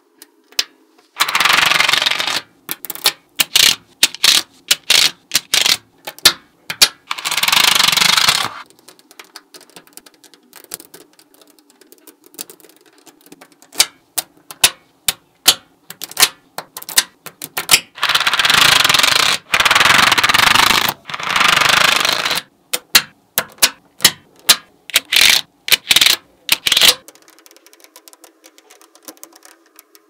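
Small magnetic balls clicking as they snap together one by one while a hand builds a flat panel of them. Four spells of a second or two of dense rattling, as many balls slide and clatter together at once, come about 1, 7, 18 and 21 seconds in; the clicking thins out near the end.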